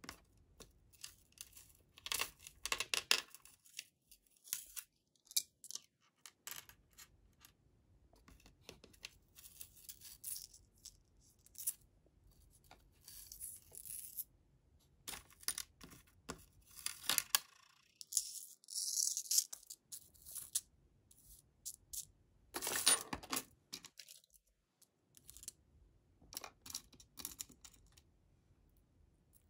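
Small jewelry being handled on a table: metal chains clinking, with scattered light clicks and rustles in short bursts and quiet gaps between.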